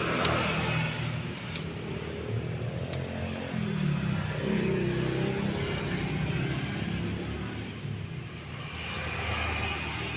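Steady low hum of a car engine running, with a vehicle passing on the road about four seconds in and a few light clicks early on.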